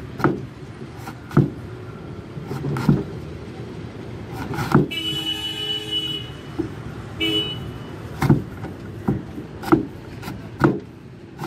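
Raw green mangoes chopped into pieces on a wooden board with a long knife: about nine sharp chops, roughly one a second. About five seconds in, a vehicle horn sounds for about a second, and again briefly a little later.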